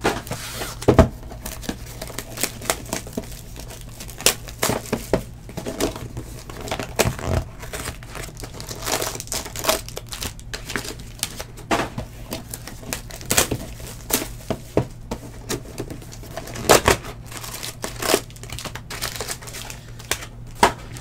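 Foil wrappers of Panini Illusions football card packs crinkling and tearing as they are ripped open, with irregular sharp crackles and clicks of handling throughout.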